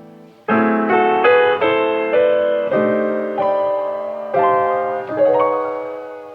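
Background music: a soft piano melody, its notes struck one after another and left to ring and die away.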